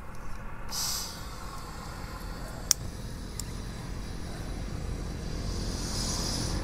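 Gas hissing from a small portable LPG cylinder stove's burner as its valve is opened, starting about a second in. There is a sharp click about three seconds in and a fainter one soon after. A low steady rumble runs underneath.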